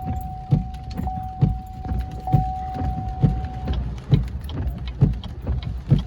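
Inside a running truck's cab: a low rumble under a thud about twice a second, with a steady high electronic tone that stops about four seconds in.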